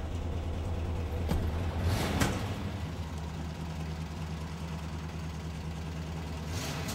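Cadillac Coupe DeVille's V8 engine idling steadily, with a brief louder burst about two seconds in.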